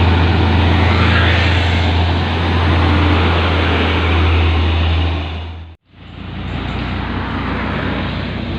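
Heavy truck diesel engine running loud and steady, with a deep low hum. It cuts off abruptly about six seconds in, then a different, slightly quieter engine and road noise takes over.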